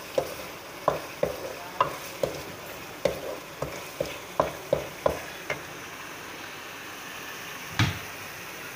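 Wooden spoon stirring a frying onion-tomato curry masala in a metal karahi, knocking and scraping against the pan about twice a second while the masala sizzles. The stirring stops a little past halfway, leaving only the sizzle, and one louder knock comes near the end.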